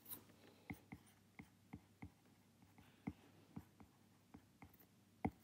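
Stylus tapping on a tablet screen while handwriting characters: a dozen or so faint, irregular taps, the loudest one near the end.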